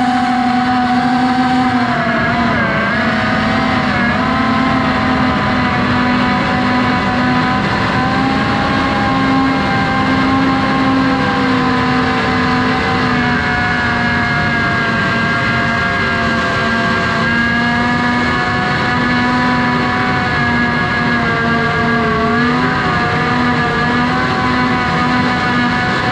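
FPV quadcopter's motors and propellers whining steadily in flight, a high multi-tone buzz whose pitch wavers and dips briefly a few times as the throttle changes.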